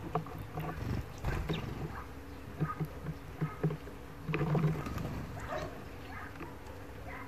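European greenfinch pecking and cracking sunflower seeds at a feeder: irregular sharp clicks and taps of its beak on seeds and husks. A steady low rumble runs underneath.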